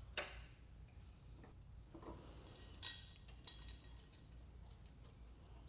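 Sharp clicks and small taps from air line fittings being pushed back onto a conveyor's pneumatic shock: one loud click just after the start, another about three seconds in, and a few fainter ticks, over a faint low hum.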